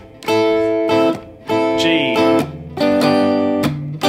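Guitar strumming simple shell chords in a steady rhythm, the chords ringing with brief muted breaks between groups of strums, moving to a different chord about three seconds in.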